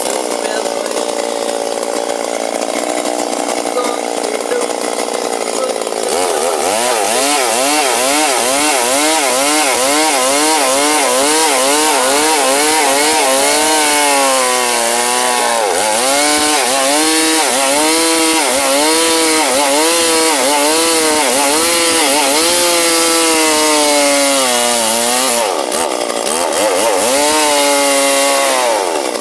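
Stihl MS 382 two-stroke chainsaw running steadily, then cutting wood from about six seconds in. Its engine pitch rises and falls over and over, about once or twice a second, as the chain bites and eases in the cut, with brief drops in speed twice.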